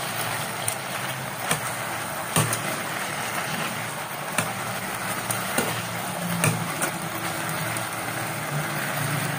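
Chicken pieces sizzling in adobo sauce in a nonstick pot as metal tongs turn them, with scattered sharp clicks of the tongs against the pot over a low steady hum.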